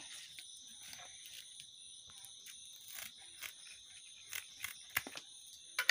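Scattered clicks and crunching knocks of objects being handled, the loudest just before the end, over a faint, steady, high-pitched whine.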